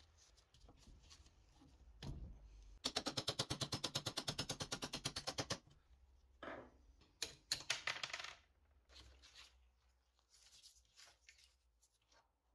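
Power screwdriver with a hex bit backing screws out of a coin-counting machine's metal housing: a fast, even rattle of about ten clicks a second for nearly three seconds, then a shorter burst about two seconds later, with a few light metal clicks between.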